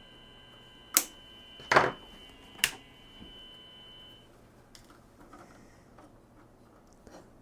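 Three sharp plastic clicks from handling the cable-tied wiring and parts, about a second apart, the middle one a little longer. A faint high whine stops about four seconds in, and a few faint handling ticks follow.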